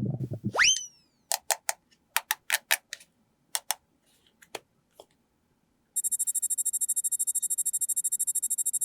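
A quick rising swoop, then a run of about a dozen sharp clicks, then from about six seconds in a rapid electronic ringing, like a bell or alarm.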